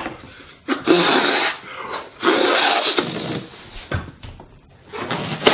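A person blowing up a rubber balloon: two long breathy puffs of air into the balloon, each about a second long.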